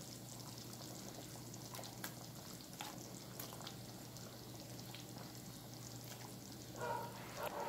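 Coconut milk simmering faintly in a wok, with a few soft clicks and plops as tuna steaks are laid into the sauce.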